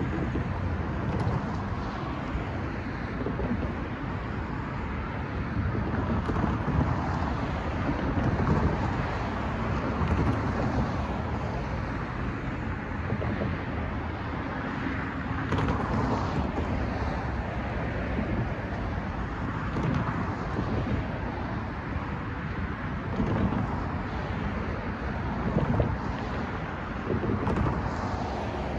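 Road traffic crossing the tracks, cars swelling and fading as they pass every few seconds, with wind rumbling on the microphone.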